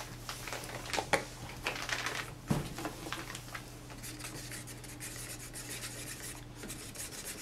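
Wooden stirring stick scraping quickly round a small cup of acrylic paint as Floetrol is mixed in, after a few knocks and a thud as the plastic Floetrol jug is handled and set down.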